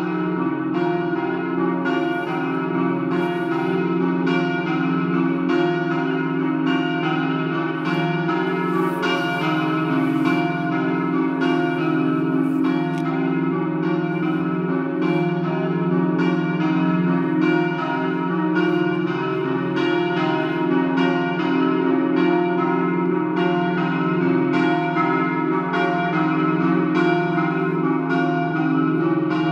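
Church bells swinging in full peal for the 'dopli' festive ringing. Strokes follow one another in a steady rhythm, and their tones ring on and overlap.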